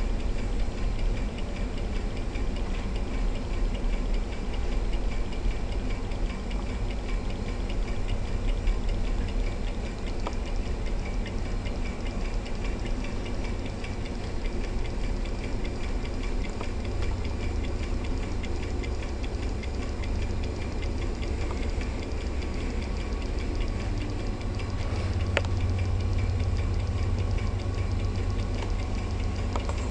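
Homemade model Stirling engine running steadily on a cup of hot water, giving a fast, even mechanical ticking with each stroke over a low hum.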